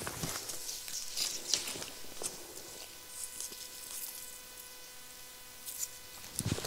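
Footsteps of people walking over dry leaf litter and twigs, crackling and crunching, fewer toward the middle as they come to a stop. A faint steady hum runs under it through the middle.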